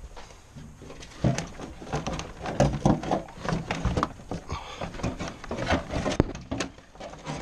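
Irregular knocks, clicks and clunks of parts being handled as the fuel tank of a Honda XL Varadero 125 motorcycle is worked back into place, with the densest run of knocks from about a second in.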